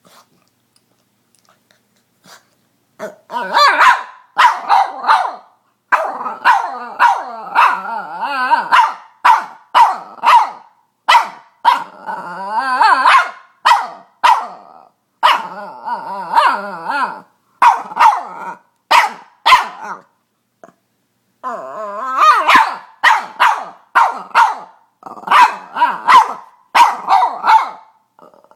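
Boston terrier barking and squealing in a long run of short, pitched cries that waver up and down in pitch. The first few seconds are quiet, and there is a brief pause about two-thirds of the way through.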